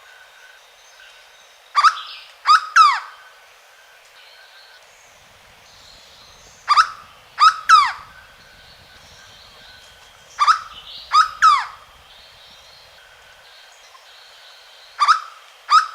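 Hooded berryeater (corocoxó) calling: loud phrases of three quick notes, each note dropping in pitch, repeated about every four seconds, three full phrases with a fourth starting near the end. Faint steady tones of other birds or insects sit underneath.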